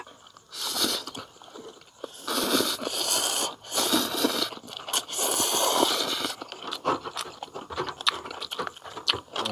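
Two people slurping ramen noodles in several long, loud slurps, then chewing with scattered small clicks from the chopsticks and bowls.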